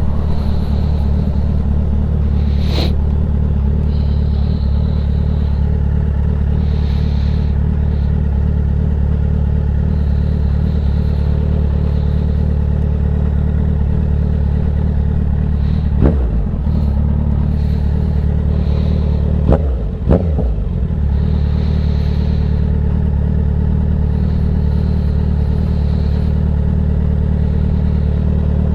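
Kawasaki Z900's inline-four engine running at a steady cruise, with a quick dip and return in engine pitch about halfway through and two more a few seconds later.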